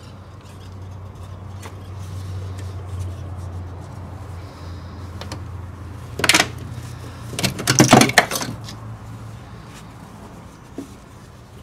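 Handling noise as a plastic power steering reservoir is worked off its rubber hoses and rags are pushed around it: small clicks and scrapes, with a few loud scraping, rustling bursts in the middle. A low steady hum runs underneath.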